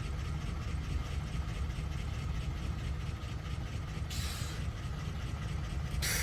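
Steady low rumble, with two short hissing scrapes about four and six seconds in.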